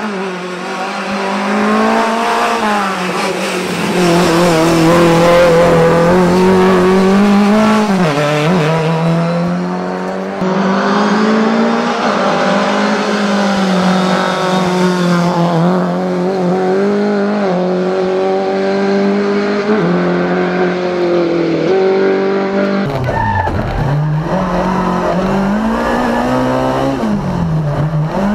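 Lada 2105 VFTS rally car's 1.6-litre four-cylinder engine revving hard as it is driven flat out, the pitch climbing and dropping again and again with gear changes and lifts. From about two-thirds of the way through it is heard from inside the car, with more low rumble.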